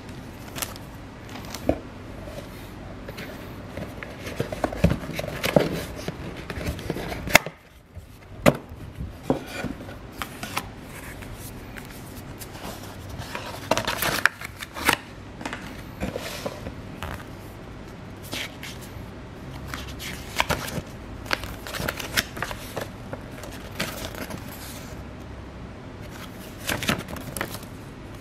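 Headphone packaging being handled: cardboard box parts and plastic wrapping scraping, rustling and clicking in irregular bursts, with a brief pause about seven seconds in.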